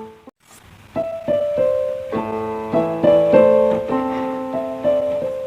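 Background piano music, a run of single notes and chords struck one after another; it cuts out briefly just after the start and comes back about a second in.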